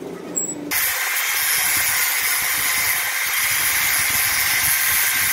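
Electric angle grinder with its disc against a flat steel bracket, grinding it to a rounded shape: a loud, steady, high-pitched hiss of disc on metal that starts abruptly under a second in.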